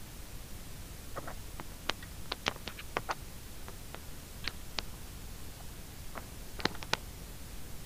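Computer mouse clicking: scattered sharp clicks, a few at a time, with a cluster around two to three seconds in and another near the end.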